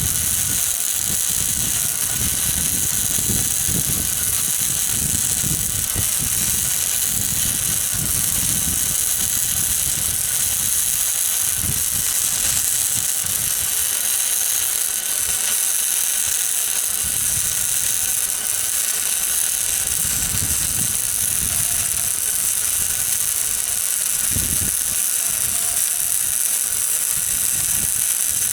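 Flux-core wire-feed welding with a Miller 140 welder, joining a quarter-inch steel plate to steel wheel rims: a steady hiss from the arc with an uneven low rumble underneath.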